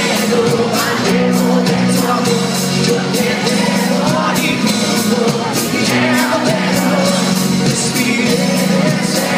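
Live pop-rock band playing in concert, with a steady drum beat, bass and guitars, and singing over it.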